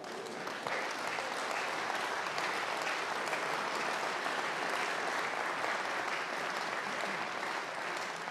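An audience applauding: steady clapping from many hands that builds over the first second and then holds.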